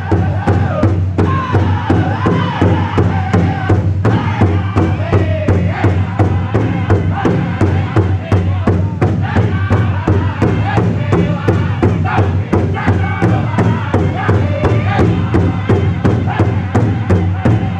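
Powwow drum group singing a high-pitched chant in unison while beating a steady, fast rhythm together on a large powwow drum.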